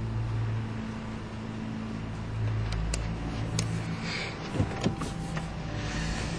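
Car engine running: a steady low hum, with a few faint clicks scattered through.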